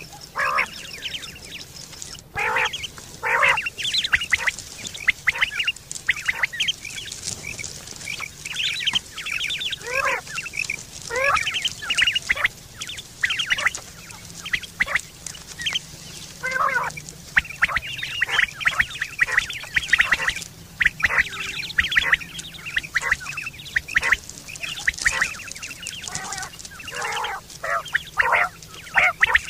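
Quail (batair) calling over and over: short, sharp call notes in quick runs and clusters, repeated without a break.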